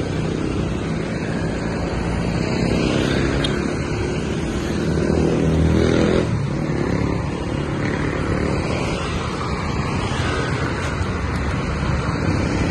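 Road traffic: cars and motorcycles running past in a continuous rumble, swelling loudest as a vehicle passes about five to six seconds in.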